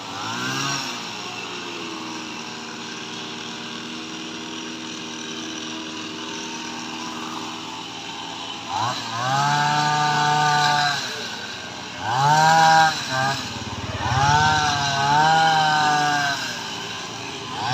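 Kamatsu HT230 two-stroke petrol hedge trimmer engine idling, then revved up three times, each rev held for one to two seconds before the pitch drops back.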